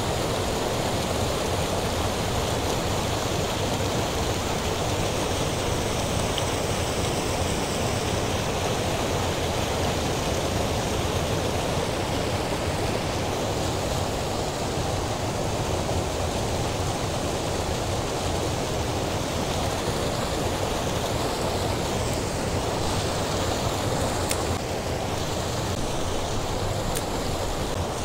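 Steady rushing of creek water pouring over a low concrete weir spillway close by, an even unbroken roar of white water.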